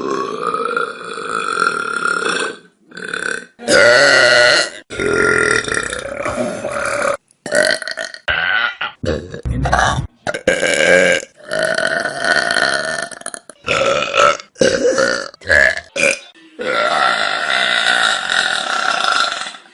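A string of loud human burps, one after another: some long and drawn out, some short. Each one stops abruptly before the next begins.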